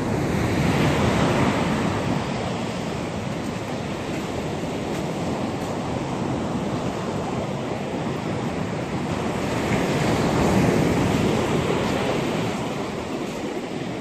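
Surf breaking and washing up a sandy beach, a steady rush that swells about a second in and again about ten seconds in, with wind on the microphone.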